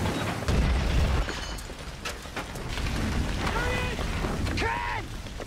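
Race car crash and fire: a heavy low boom about half a second in, then the rumble of the burning wreck, with a man shouting twice near the end.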